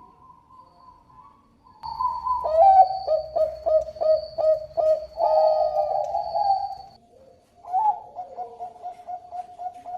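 Perkutut bangkok (Thai-bred zebra dove) cooing. About two seconds in comes a loud run of quick staccato coos, ending in a long rolling note. A softer run of rapid coos follows near the end.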